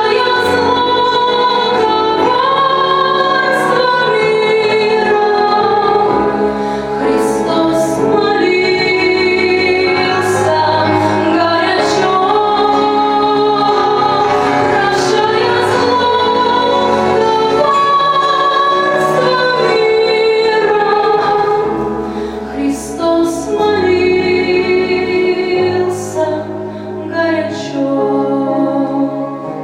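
Song with a woman singing long held notes over instrumental accompaniment and a steady bass line.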